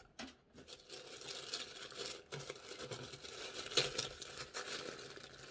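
Tissue paper rustling and crinkling as it is unfolded by hand inside a cardboard gift box, irregular and louder now and then.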